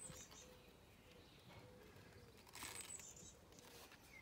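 Near silence: faint handling of a paper disc as elastic is threaded through its holes, with a brief soft rustle about two and a half seconds in.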